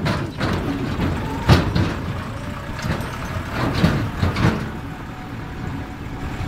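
Tractor engine running while riding on it, with the rattle and jolts of the ride over a rough track. Sharper knocks stand out about a second and a half in and twice around four seconds.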